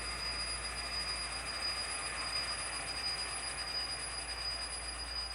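HO-scale model diesel locomotive (ScaleTrains GE AC44C6M with ESU LokSound sound) running, a steady rumbling rush with a thin high-pitched whine held throughout.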